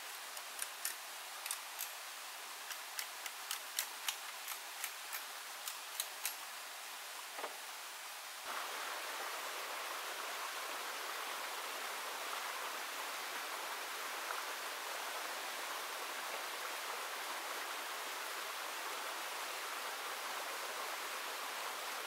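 Steady rush of running water, with a series of sharp, irregular clicks over the first seven seconds or so. About eight and a half seconds in, the water sound becomes suddenly louder and then stays steady.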